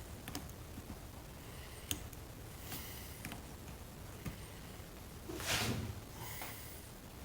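Faint small clicks and taps of hands working a wire and soldering iron at a connector, with a short loud breath through the nose about five and a half seconds in.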